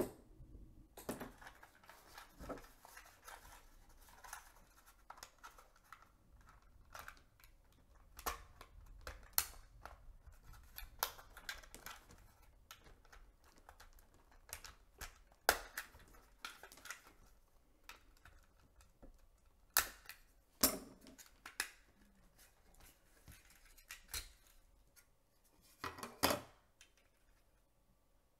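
Irregular clicks, taps and scrapes of a Kodak FunSaver disposable camera's plastic body being taken apart by hand: the battery pulled, screws turned out with a precision screwdriver and the shell pried open. The sharpest clicks come about two-thirds through and shortly before the end.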